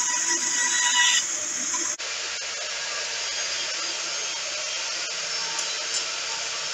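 Electric band saw cutting through a thin strip of wood, with a steady whine. About two seconds in it changes abruptly to a table saw running steadily, an even motor-and-blade noise with a low hum.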